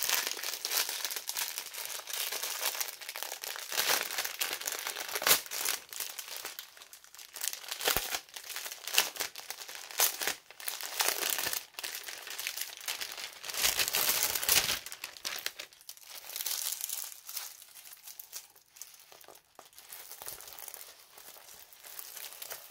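Plastic packaging of a diamond painting kit crinkling and rustling as it is handled and opened, in irregular spells that grow sparser and quieter near the end.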